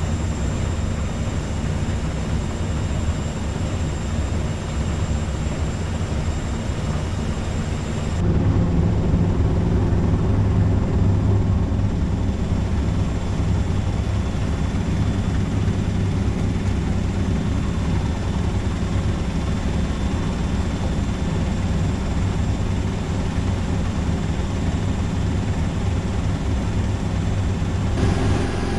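Front-loading washing machine spinning at 1300 rpm on its spin cycle: a loud, steady, low drone. It gets louder about eight seconds in.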